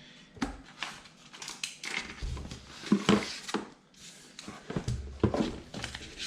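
Unboxing handling sounds: cardboard and packaging rustling with irregular light knocks and clicks, loudest about three and five seconds in.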